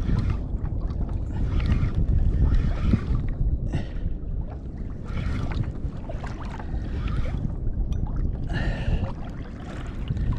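Heavy wind rumble on the microphone and water around a kayak, with a large spinning reel being wound in short bursts, one every second or so, as line is gained on a big fish.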